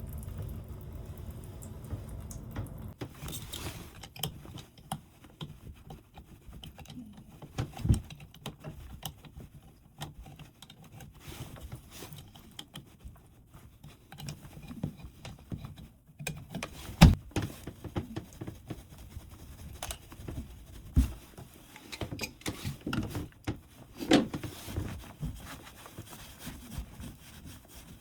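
Scattered knocks, clicks and clinks of hand work on a bathtub spout in a small room, with one sharp knock about 17 seconds in the loudest.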